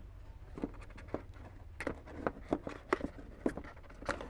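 Hands handling a cardboard smartphone box while unpacking it: scattered small taps and clicks of fingers and cardboard, about a dozen over a few seconds.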